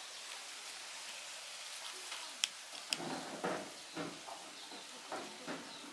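A kitten crunching dry cat food kibble from a plate: two sharp clicks about halfway through, then a run of short, irregular crunches. A steady hiss lies under it throughout.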